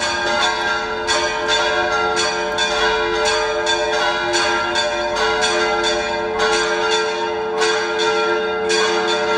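Church bells ringing a peal: several bells struck in quick succession, about two strokes a second, their tones ringing on and overlapping.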